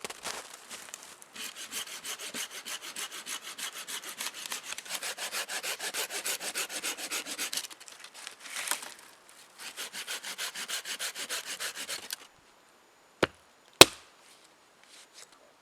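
Quick, rhythmic sawing strokes in two long runs with a short pause between them, followed by two sharp knocks near the end.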